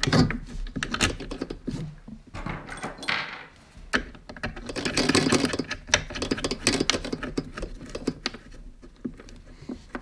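Hands fitting a diesel heater's small fuel pump and its rubber mount into place inside a plastic case: a run of small clicks and taps with rustling of rubber, plastic and wiring.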